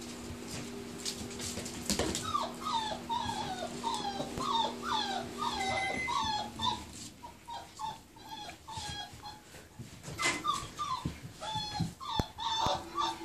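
Month-old puppies whining: a run of short, high calls that slide downward in pitch, several a second, starting about two seconds in and coming more sparsely in the second half.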